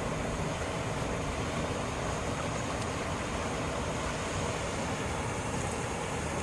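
Steady rushing outdoor noise at an even level, with no distinct splashes or knocks standing out.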